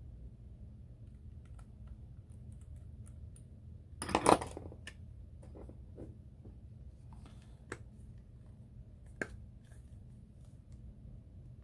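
Small clicks and taps of an iPhone 6s and repair tools being handled while the phone is closed back up, with one louder half-second clatter about four seconds in and two sharper clicks later, over a low steady hum.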